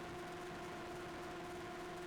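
Faint, steady hum made of a few held tones over a light hiss, unchanging throughout.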